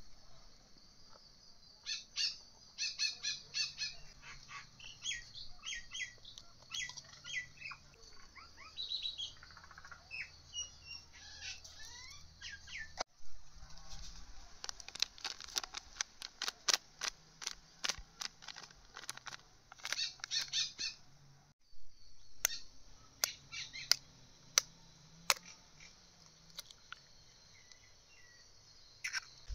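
Birds chirping in short, high calls. In the second half there is a quick series of sharp clicks, the loudest sounds here.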